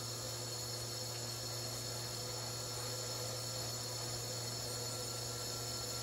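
La Marzocco Linea Classic 2EE espresso machine running water through both group heads: a steady low electrical hum from the pump with high steady tones above it, over the hiss of water splashing from the dispersion screens.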